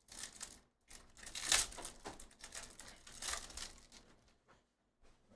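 Foil wrapper of a Panini Phoenix football card pack torn open and crinkled by hand, in several short bursts of crackle.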